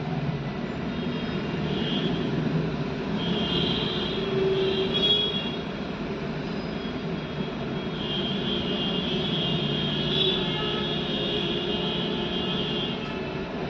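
Street traffic at a standstill, heard from inside a stopped car: engines running under a steady rumble, with a high whine rising over it twice, briefly around four seconds in and longer from about eight seconds in.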